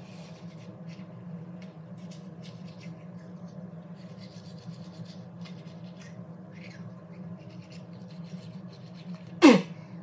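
Manual toothbrush scrubbing teeth: a run of short, scratchy brushing strokes over a steady low hum. Near the end comes a loud, brief sound that drops sharply in pitch.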